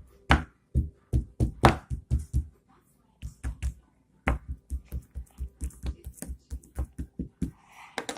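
Knife chopping glitter slime against a hard surface: a quick, uneven run of sharp taps, about three a second, with a brief pause about three seconds in.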